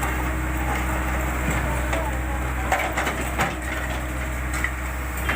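JCB backhoe loader's diesel engine running steadily while its bucket crunches and scrapes through broken road material, with a few sharp knocks about halfway through.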